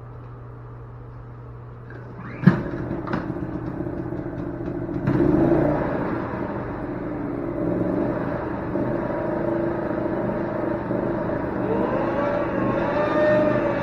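Portable generator engine starting about two and a half seconds in with a sharp bang, then running steadily. It gets louder about five seconds in.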